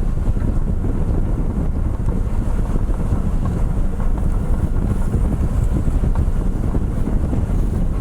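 Wind buffeting the microphone aboard a moving ferry, over a steady low rumble from the ferry under way. It is continuous and unchanging.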